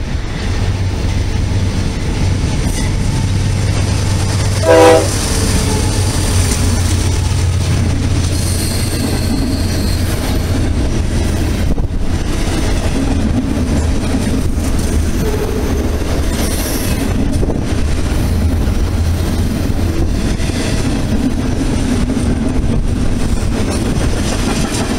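Diesel freight train passing close by: its locomotive gives one short horn blast about five seconds in, then the freight cars roll past with steady wheel rumble and clatter and some high wheel squeal.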